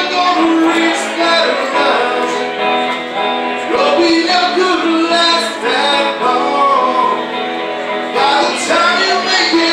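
A man singing live into a microphone, accompanying himself on guitar: a continuous song with the voice moving over steady guitar chords.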